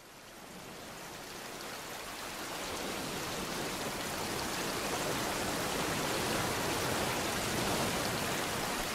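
Choppy open water washing and splashing close by, a steady rushing that fades in over the first three seconds or so.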